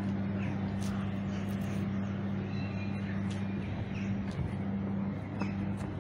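A steady low hum, with crows cawing now and then.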